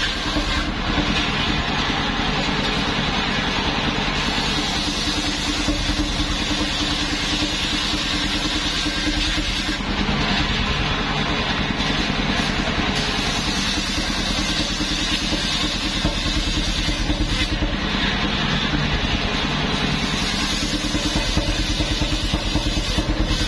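Engine of a homemade mobile circular sawmill running steadily, driving its large circular blade as a plank is fed through lengthwise.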